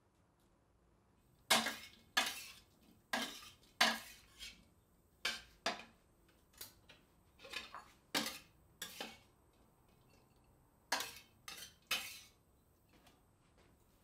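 Dishes and cutlery clinking and knocking together at a kitchen sink as they are handled: a run of irregular sharp clatters, a short lull, then a last few clinks.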